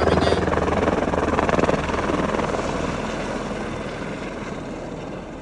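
Helicopter landing on a ship's helipad, its rotor and engine noise loud at first and fading steadily away.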